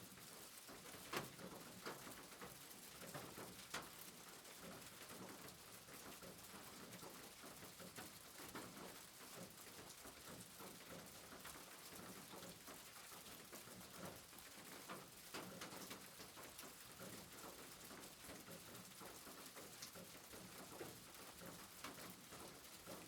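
Faint steady rain with scattered drops pattering and ticking irregularly on a surface.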